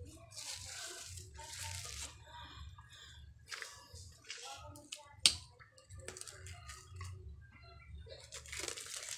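Clear plastic wrapping on a new water filter cartridge crinkling and tearing as it is handled, in several short rustling bursts. A single sharp click about halfway through is the loudest sound.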